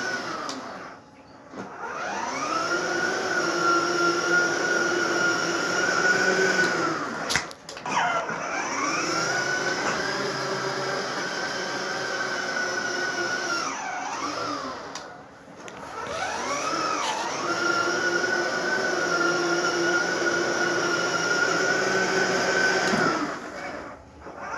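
Electric drive motors of a child's ride-on toy car whining as it drives. The whine rises in pitch each time the car pulls away and falls as it stops, and it cuts out and starts again about three times.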